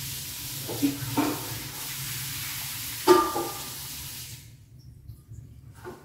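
Steady background hiss over a low hum, with a few faint short sounds; the hiss cuts off suddenly about four and a half seconds in, leaving only the hum.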